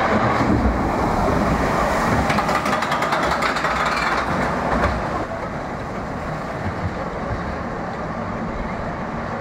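Small roller coaster train rolling and rattling along its steel track as it passes, loudest for about the first five seconds, then quieter as it moves away.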